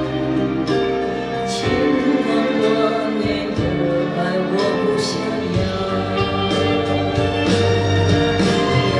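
A woman singing live into a microphone over backing music, holding long notes.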